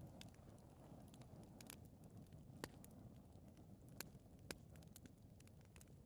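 Faint fireplace fire burning: a low steady rumble of flames with scattered small crackles and three sharper pops around the middle.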